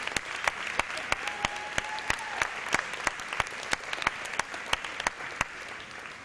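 Audience applauding, with one person's hand claps sharp and close over the crowd's, in a steady rhythm. The applause eases off slightly near the end.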